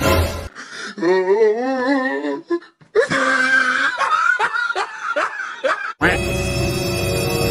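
Laughter: a drawn-out wavering laugh, then a string of short, quick laughs. Background music cuts out about half a second in and comes back near the end.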